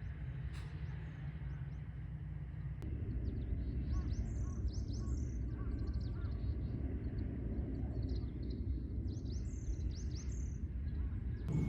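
Birds twittering in two bursts of quick, high chirps, about four and nine seconds in, over a steady low rumble. The first few seconds hold only a steady low hum before the background changes abruptly.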